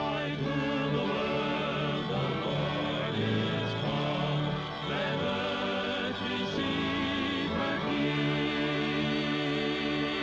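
Choir singing with vibrato over an orchestra: the title score of a 1940 cartoon.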